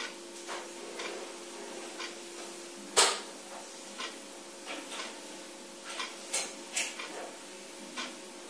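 Quiet room tone with a steady low hum and faint, regular ticks about once a second. There is one sharp knock about three seconds in, and a few softer clicks.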